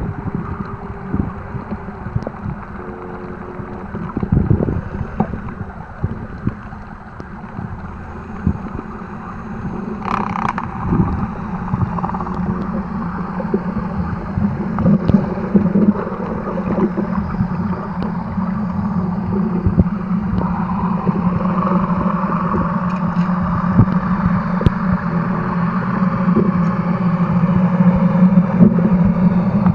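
Muffled underwater noise from a camera held in the sea, with irregular low thumps of water moving against the housing and a brief clatter about ten seconds in. A low steady drone builds up through the second half.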